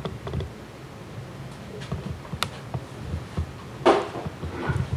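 Handheld camcorder handling noise and movement indoors: a low rumble with a few faint clicks and knocks, one sharper click midway and a short louder rustle near the end.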